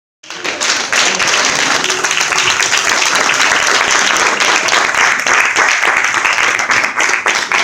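Congregation applauding: many hands clapping steadily. It starts abruptly just after the beginning.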